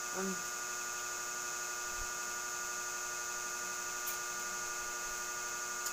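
Steady electrical hum: a set of fixed tones over faint hiss, with a faint click about four seconds in.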